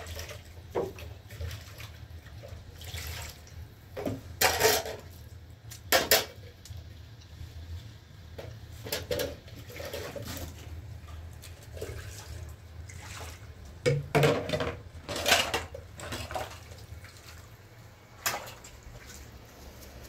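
Eating sounds from a shared meal on the floor: flatbread being torn and food scooped from a plate, with scattered short rustles and light clatter. The loudest cluster comes about two-thirds of the way through. A steady low hum runs underneath.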